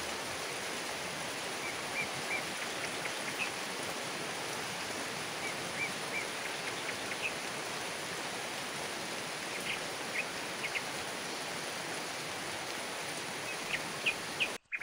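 Steady rain falling on garden foliage, with a few short high chirps in small groups every few seconds.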